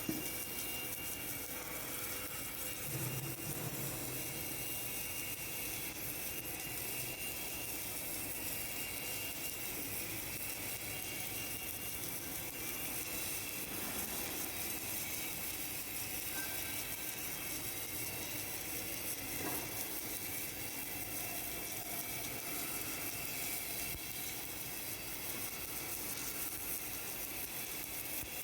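Automatic submerged arc welding machine running: a steady hiss with a faint high whine that does not change.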